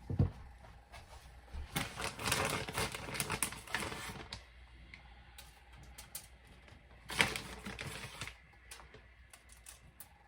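Kitchen handling sounds: a sharp knock at the start, then two bursts of rapid clicking and rattling, the longer one about two seconds long and the other about a second long, with a few scattered clicks afterwards.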